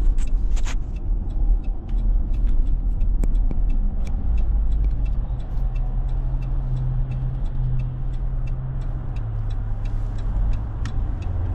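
Inside a moving Dodge car: steady engine and road rumble, with a low engine hum that settles in about halfway through. Faint, regular ticks about twice a second run through the rumble.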